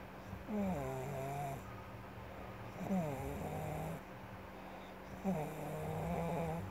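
Snoring: three pitched snores about two and a half seconds apart, each starting with a quick drop in pitch and settling into a steady tone for about a second.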